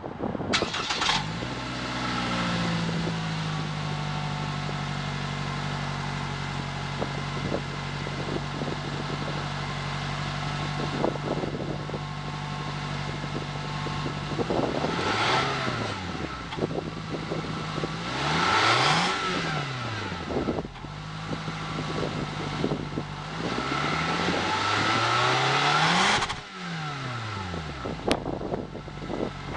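2015 Toyota Camry XSE exhaust heard at the tailpipe: the engine fires just after the start and settles to a steady idle. It then revs three times, two short blips and a slower climb to the highest pitch near the end that drops back quickly.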